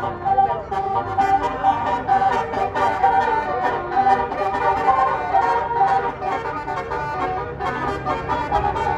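Indonesian bus 'telolet' musical air horn playing a tune, its several horn tones switching notes in quick succession.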